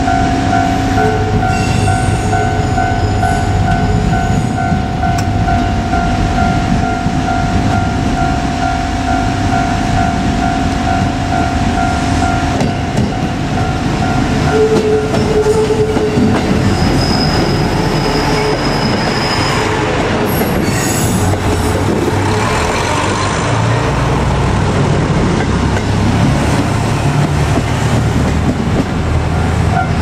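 JR Kyushu KiHa 200 diesel railcar running past, its engine droning and its wheels clattering over the rail joints. A high wheel squeal lasts a couple of seconds past the middle. Through the first half a level-crossing warning alarm rings steadily, stopping about halfway.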